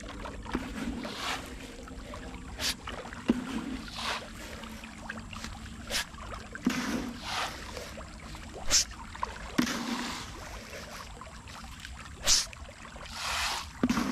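Irregular splashes on a tilapia pond as handfuls of feed pellets are thrown onto the water, about a dozen separate splashes, some sharp and some longer and smeared.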